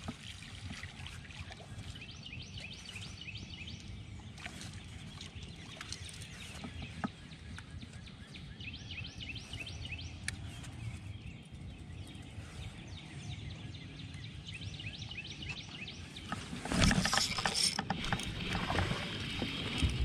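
Steady low wind rumble on the microphone in an open fishing boat, with faint intermittent high clicking. About three-quarters of the way in, a louder stretch of knocks and rustling.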